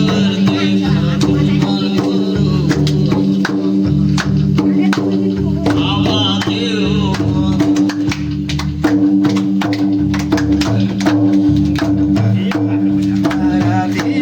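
Devotional folk music: drums and other percussion strike busily over a steady held drone, with a wavering melodic line above.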